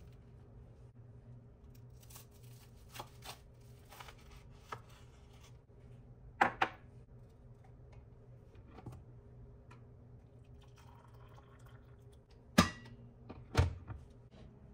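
Kitchen handling sounds: faint rustling, then a ceramic mug set down on the countertop with a quick double knock about halfway through, and two sharper knocks near the end as the stainless-steel electric kettle is handled.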